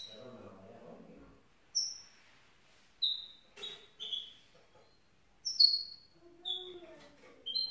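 Young goldfinch mule (goldfinch × canary hybrid) giving a string of short, high chirps, about one every second, with gaps between rather than continuous song.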